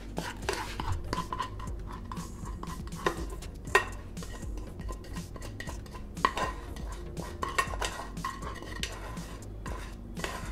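A spoon scraping and knocking inside a small non-stick pan as thick dalgona toffee is scraped out, with repeated short clinks; the sharpest come about 3, 4 and 6 seconds in.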